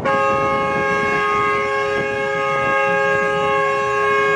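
Truck horn starting suddenly and held as one long, steady chord of several tones, over crowd noise.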